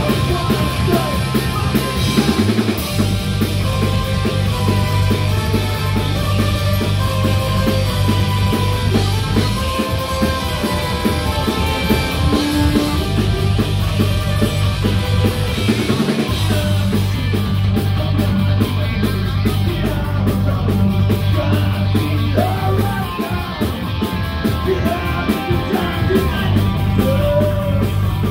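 A punk rock band playing live, with electric guitars, bass guitar and a drum kit driving a steady beat under a male lead vocal.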